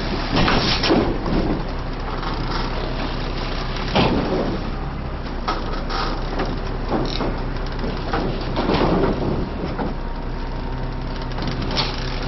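An engine idling steadily, with a series of separate knocks and clatters over it. The loudest knock comes about four seconds in.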